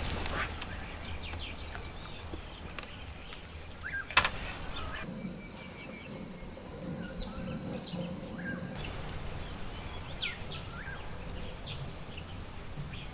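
Insects trilling steadily in one high continuous tone, with a few short bird chirps scattered through. A single sharp click about four seconds in.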